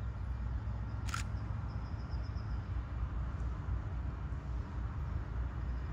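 Steady low outdoor rumble beside a railway line, with one short, sharp downward chirp about a second in and a faint high trill twice.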